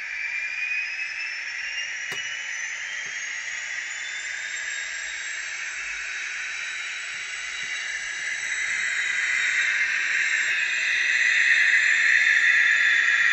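Paxman Valenta engine sound of an HST power car, played by an ESU LokSound V5 nano DCC decoder through a tiny 9x25 mm sugar-cube speaker in an N gauge model: a hissing turbo scream with a whistle rising in pitch over the first few seconds. It grows louder in the last few seconds, and there is a single click about two seconds in.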